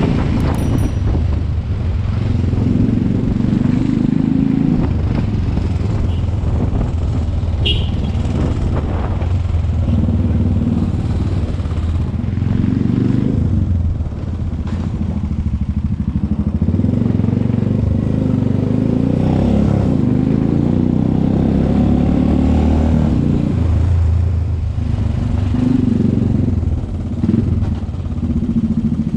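Suzuki motorcycle engine running while riding at low speed, its note swelling and dipping every few seconds as the throttle opens and closes.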